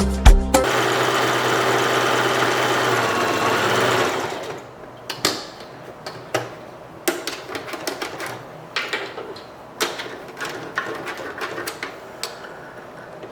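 Sewing machine stitching a hair weft onto a wig cap, running steadily at speed for about the first four seconds, then stopping. Scattered light clicks and taps follow as the work is handled.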